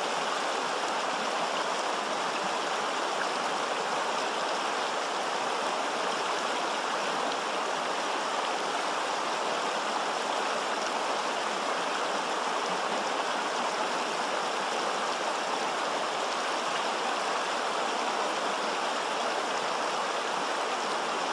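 Shallow mountain river rushing over stones: a steady, unbroken rush of running water.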